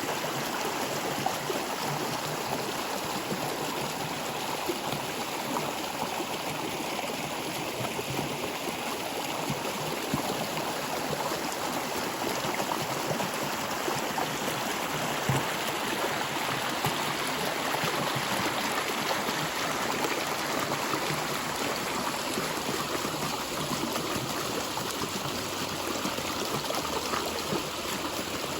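Stream water flowing and trickling in a steady, even rush with small splashes.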